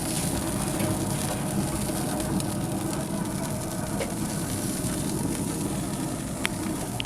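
Smoker barbecue with a whole sea bass cooking on it: a steady rushing noise over a low hum.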